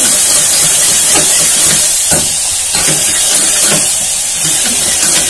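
Onions, tomatoes and green chillies sizzling in hot oil in an aluminium pressure cooker, stirred with a steel ladle: a steady frying hiss with a few scrapes of the ladle against the pot.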